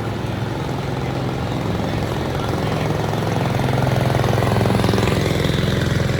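A large engine running steadily with a low, pulsing drone that grows louder about three seconds in.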